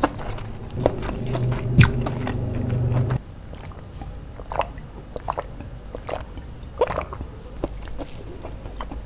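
Close-miked mukbang eating sounds: chewing and wet mouth clicks of fried chicken and rice eaten by hand, with sips from a water bottle partway through. A low steady hum fills the first three seconds and cuts off abruptly.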